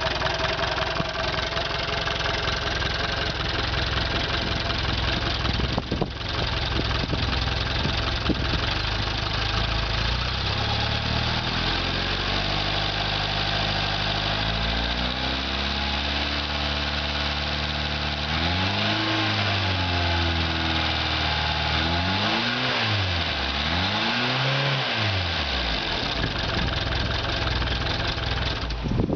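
Rebuilt Bearcat 55 hp outboard motor running. It idles steadily, its speed slowly climbs through the middle, then it is revved up and back down three times, the last two quick blips close together, before settling back to idle near the end.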